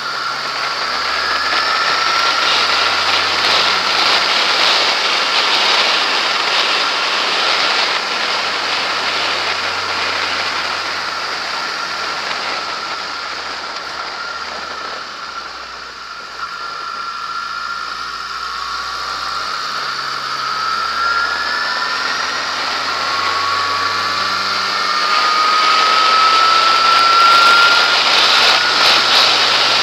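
Yamaha XJ6S's inline-four engine running while riding, heard through a strong rush of wind over the bike-mounted camera. It eases off near the middle, then a rising whine builds in the last third as the bike accelerates.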